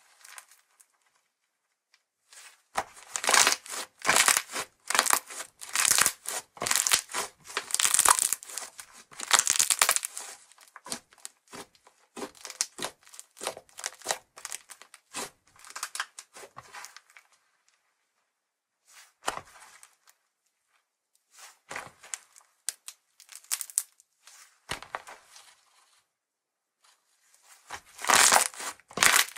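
Fluffy white slime (Slime Japan's Conversation Heart Ice) stretched, folded and pressed by hand, giving crackly, crinkling and tearing sounds. Dense runs of crackling are broken by a few seconds of near silence, first at the start and again twice in the middle, and pick up again near the end.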